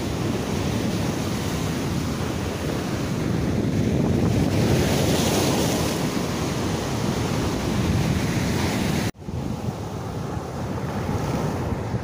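Rough surf breaking against a rock breakwater and shore, a continuous wash of heavy waves with wind buffeting the microphone. The hiss swells around five seconds in. The sound cuts out abruptly a little after nine seconds and resumes slightly quieter.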